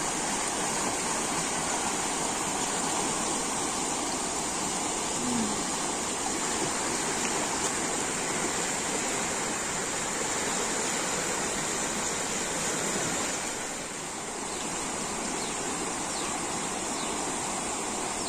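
Shallow river rushing over a rocky bed in small rapids, a steady rush of water that dips briefly about fourteen seconds in.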